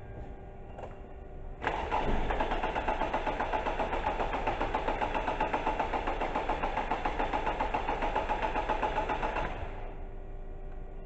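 Four-cylinder car engine being cranked by its starter motor with the ignition coils unplugged, so it turns over steadily but never fires. It starts suddenly about a second and a half in, runs with an even, rapid pulsing rhythm, and stops near the end.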